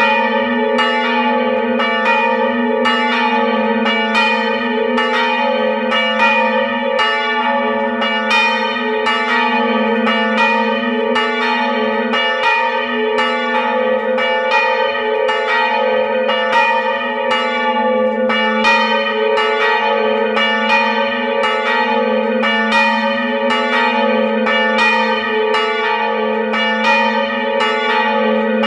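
Two swinging bronze church bells, Petr of about 450 kg and Pavel of about 380 kg, rung together: strike follows strike in a steady rhythm, a little more than one a second, each stroke ringing on into the next.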